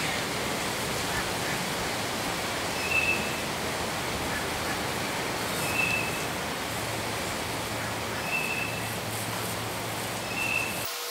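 Steady rushing outdoor background noise, with a short high chirp repeating about every three seconds and a faint low hum in the second half.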